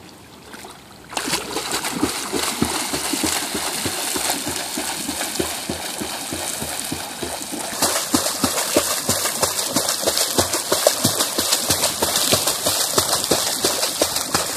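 Swimmer's freestyle flutter kick: feet breaking the water surface in a quick cadence, a fast continuous run of splashes and slaps starting about a second in.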